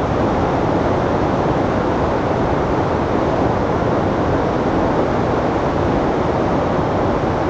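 Whitewater of the Pemigewasset River in flood, a steady, loud rush of water through the rapids.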